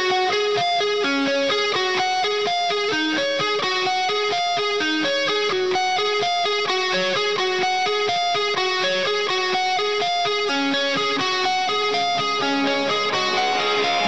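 Background music: guitar playing a fast, steady run of short notes.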